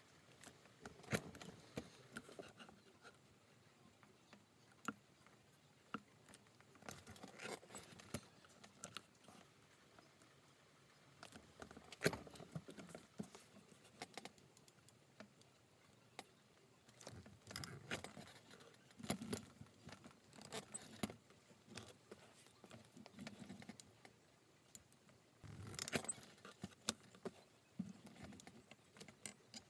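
Stitching chisel (pricking iron) in a hand press punching stitching holes through a leather strap into a foam pad: clusters of sharp clicks and knocks from the press strokes, with rustling as the strap is shifted between them.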